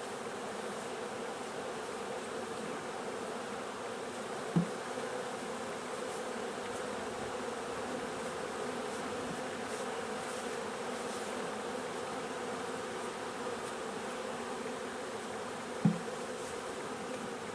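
A swarm of honeybees buzzing steadily in a continuous hum. Two short knocks sound, one about four and a half seconds in and one near the end.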